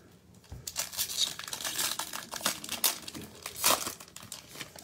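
Foil wrapper of a baseball card pack being torn open and crinkled by hand: a dense run of crackling and tearing that starts about half a second in and is loudest near the end.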